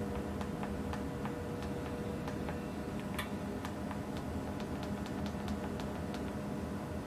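Irregular light clicks, about two a second, from the jog keys of a KUKA robot teach pendant being pressed to inch the arm along, over a steady low hum from the robot cell. A faint steady tone in the hum stops about two and a half seconds in.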